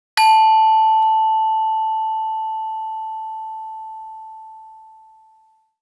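A single struck bell-like chime: one clear tone that rings out and fades slowly over about five seconds.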